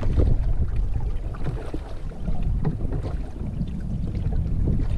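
Wind buffeting the microphone in a steady low rumble, over water lapping and splashing in small irregular bursts against the bow of a moving canoe.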